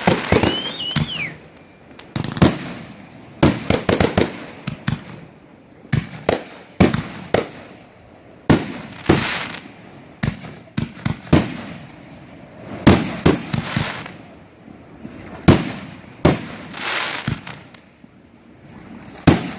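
Fireworks finale: aerial shells bursting in rapid succession, sharp booms and bangs coming in clusters every second or so, with crackling between them.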